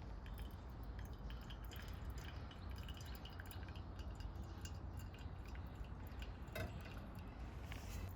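Water dripping in small, irregular drops over a low, steady rumble.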